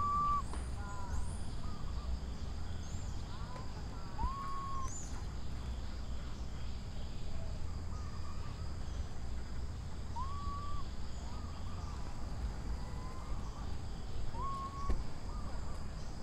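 Baby macaque giving short whistle-like coo calls, each rising and then holding its pitch for about half a second, four times several seconds apart, over a steady low rumble.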